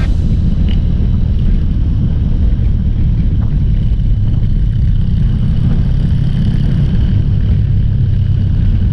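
Trail motorcycle engine running with a steady low rumble.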